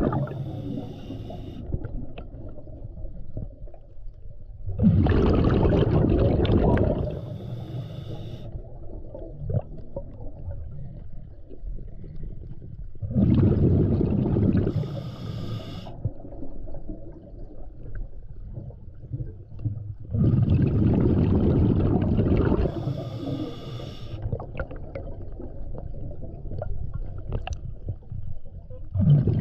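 Scuba diver breathing through a regulator underwater: a short hissing inhale through the regulator, then a loud rush of exhaled bubbles lasting about two seconds. The cycle repeats about every seven to eight seconds, four exhales in all.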